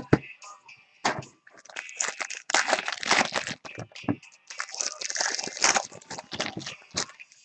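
Foil trading-card pack wrappers crinkling and tearing as packs are ripped open and the cards handled, in repeated bouts of rustling.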